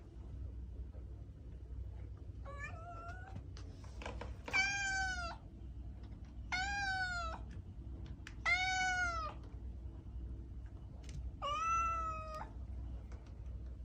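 Domestic cat meowing five times, about two seconds apart, the first one fainter; each meow is long and rises slightly, then falls in pitch. A steady low hum runs underneath.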